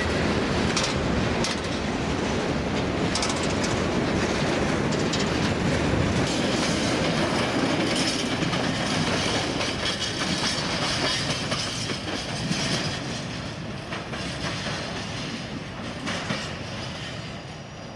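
Freight train wagons rolling past, wheels clicking over the rail joints. The sound fades over the last few seconds as the train moves away.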